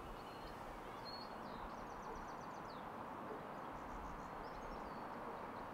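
Outdoor ambience: a steady low background hiss with small birds chirping faintly, a quick run of chirps about two seconds in and a few more near four seconds.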